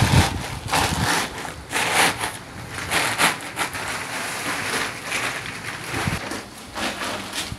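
Strong wind blowing in irregular gusts: a rushing noise that swells and drops every second or so.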